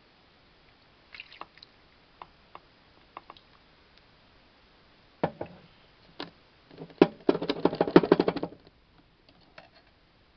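Clinks, taps and knocks of glass jars and a plastic funnel being handled while pickled peppers and garlic are spooned through the funnel into a jar. Single knocks come here and there, with a quick run of clicks about seven seconds in, the loudest part.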